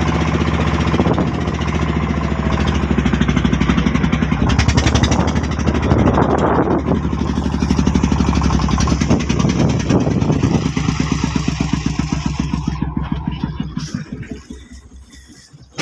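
Single-cylinder diesel engine of a homemade Cambodian farm truck running with a rapid, even thumping, then fading away near the end.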